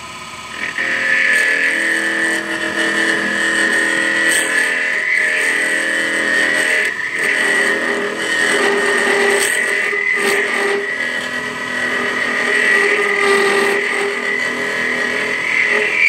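Lathe turning tool cutting a small acrylic blank spinning at a little over 2400 rpm, setting up a loud, steady, high-pitched chatter squeal with a lower hum beneath, starting about a second in. The chatter comes from the blank being mounted on a small spindle that is not hardened and so is not stable enough.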